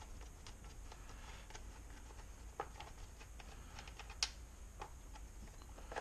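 Faint, scattered small clicks and taps of tools and parts as a Stihl MS 160 chainsaw is taken apart, with a couple of sharper clicks partway through.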